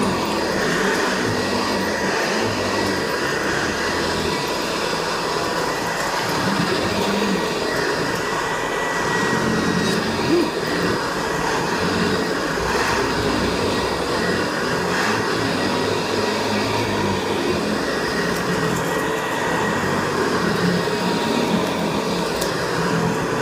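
Hoover Convertible Elite (model U4063) upright vacuum cleaner running steadily on its low setting while vacuuming a rug: a constant motor-and-fan whine with a few steady tones. There is a brief click about ten seconds in.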